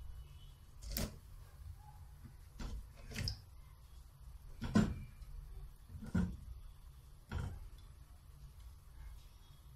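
Whole sweet potatoes being set one after another into a pot of water, giving about six short, dull knocks against the pot and each other.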